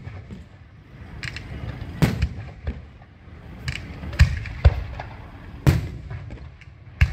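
Firecrackers and fireworks going off: about seven sharp bangs at irregular intervals of roughly half a second to a second and a half, with faint crackling between them.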